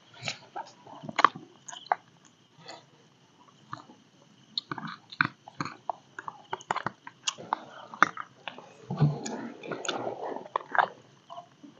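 Metal spoons clicking and scraping against plastic bowls, with chewing, as two people eat. There is a denser rustling clatter about nine seconds in. A steady high insect drone sounds behind.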